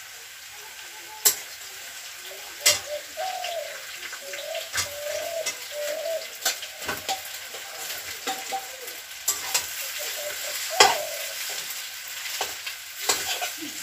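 Raw fish pieces and potatoes sizzling as they fry in hot oil with onion in a metal kadai. Sharp clicks and knocks of the bowl and spatula against the pan come every second or two as they are tipped in and stirred.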